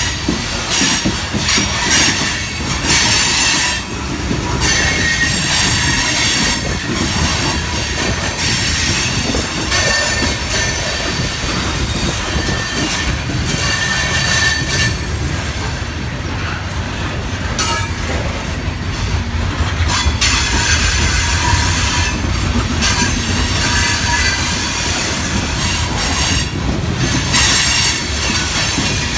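Loaded coal hopper cars rolling past close by, their steel wheels squealing on the curve in high tones that come and go over a steady low rumble. Frequent sharp clicks of wheels over rail joints run through it.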